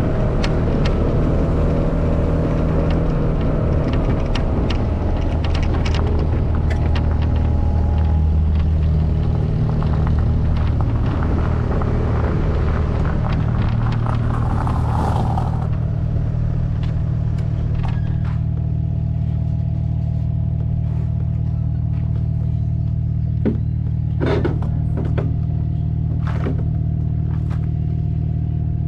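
A vehicle engine running while climbing a gravel track, with stones clicking and rattling under the wheels. After about 16 seconds it settles into a steady idle, with a few sharp clicks later on.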